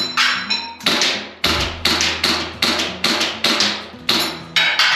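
Tokyo Marui Glock 17 Gen 5 gas blowback airsoft pistol fired in quick succession, about ten sharp shots at roughly two to three a second, some followed by a short ringing tone. Background music plays underneath.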